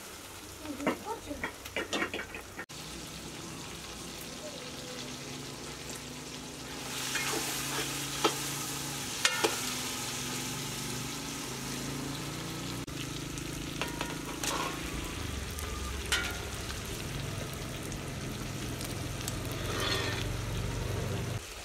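Meat and tomatoes sizzling as they fry in an aluminium pot over a wood fire, with a metal skimmer clinking and scraping against the pot as the food is stirred. A quick run of clatters comes in the first two seconds, and the sizzling grows louder after about seven seconds.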